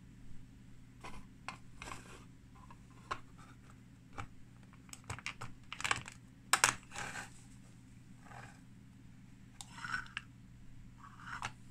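Irregular clicks, taps and brief scrapes of a small plastic figurine being handled and pressed onto its plastic base on a wooden desk. There is a sharper click about halfway through, as the figure's feet are seated onto the base.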